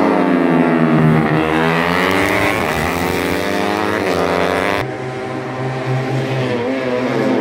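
Yamaha Y15ZR 150cc single-cylinder four-stroke underbone race bikes, two together, running hard through a corner. Their engine pitch falls and rises repeatedly as the riders brake and accelerate. The sound drops abruptly in level about five seconds in.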